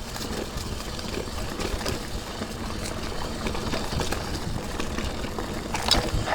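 Mountain bike rolling down a dirt trail: steady rolling noise with small rattles and clicks, briefly louder near the end.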